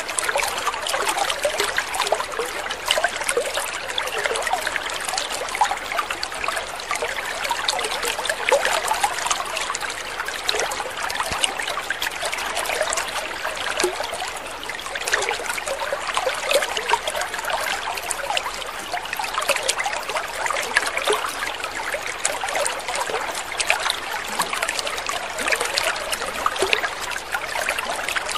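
Water trickling steadily: a continuous babble of many small splashes and gurgles.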